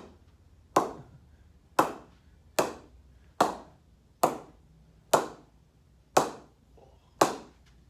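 A new SG English willow cricket bat being struck on its face by a cricket ball to test its ping: eight sharp knocks, about one a second, each with a short ringing ping.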